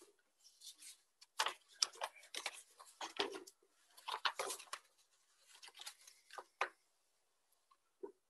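Faint irregular rustling and clicking: a run of short scrapes and ticks, busiest in the first few seconds, thinning out to a few isolated clicks near the end.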